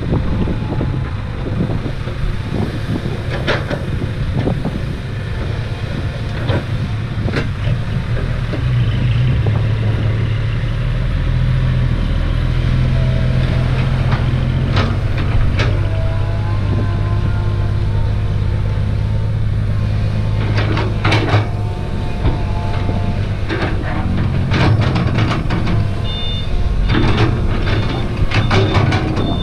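Diesel engines of a Komatsu excavator and a six-wheel dump truck running, with sharp clanks and knocks throughout. From about eight seconds in, a steadier low engine drone sets in as the loaded truck pulls away. Near the end, a high reversing beeper sounds several times.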